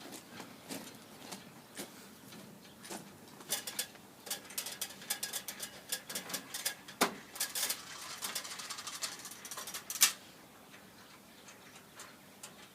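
Scaffold parts being dismantled: irregular clicks and clatter of fittings and components, busiest in the middle, with two sharp knocks, the loudest about ten seconds in, then quieter.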